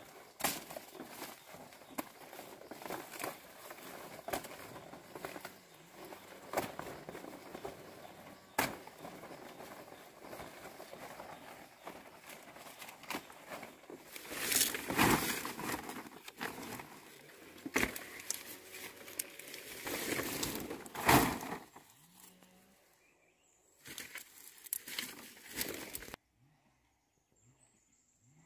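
Large dong leaves and their stalks rustling and crackling as they are gathered by hand in thick undergrowth, with scattered sharp clicks. Two louder bursts of rustling come about halfway through and again a few seconds later, and the sound dies away near the end.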